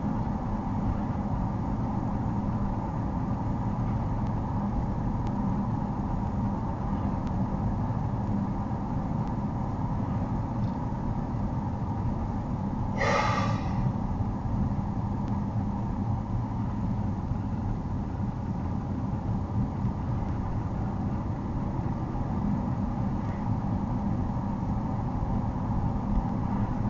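Steady engine and tyre rumble heard inside a moving car's cabin, picked up by a dashcam. About halfway through there is one brief, higher sound that stands out above the rumble.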